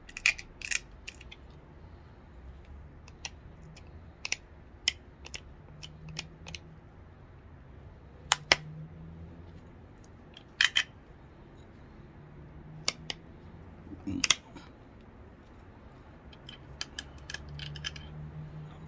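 Pressure flaking a flint point with a hand-held pressure flaker: irregular sharp clicks and snaps as small flakes pop off the stone's edge, a few louder snaps among many light ticks.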